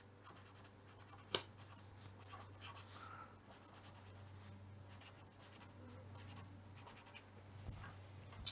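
Faint scratching of a blue pencil on paper as a word is written out in short strokes, with one sharp tap about a second and a half in. A low hum runs underneath.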